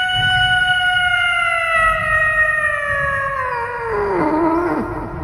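A long drawn-out howling call on one held note. About four seconds in it sags downward in pitch and breaks up.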